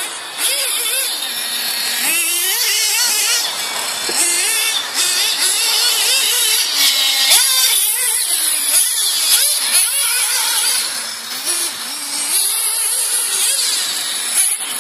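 Kyosho MP9 TKI3 1/8-scale buggy's small nitro engine running hard, its high-pitched whine rising and falling again and again as the throttle is worked through the track.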